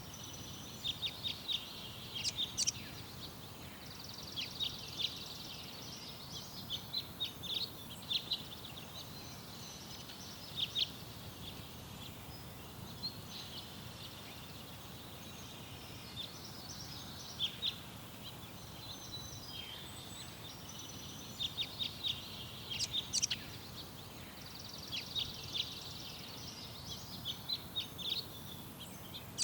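Garden songbirds chirping and singing in bursts of quick, high notes, with short pauses between phrases, over a steady low background rumble.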